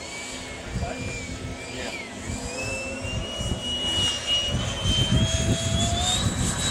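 Small turbine engine of a radio-controlled model F-16 jet spooling up for its takeoff run. Its high whine rises steadily in pitch and grows louder, with a jump in pitch near the end, over a low gusty rumble.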